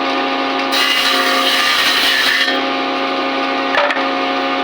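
Electric power tool running with a steady hum, cutting into wood for about two seconds from about a second in, with a brief knock near the end.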